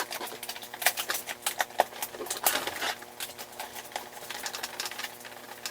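Hands working a large action figure free of its plastic packaging and ties: irregular plastic clicks, crinkles and rustles, a little busier around the middle.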